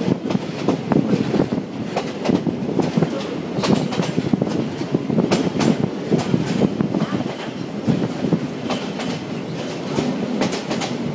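Passenger train of the Yangon Circular Railway running along the line, heard from inside a carriage at an open window: a steady rumble of wheels on track with frequent irregular clatter and knocks from the rails and the rattling carriage.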